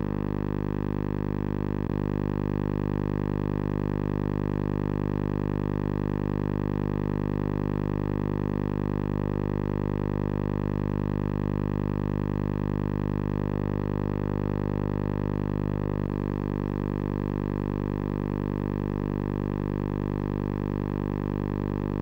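Steady electrical hum with many overtones, unchanging in pitch and level throughout.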